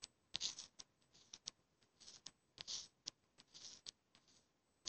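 Faint, scattered soft swishes and light clicks of a fingertip swiping and tapping on a phone's touchscreen while scrolling.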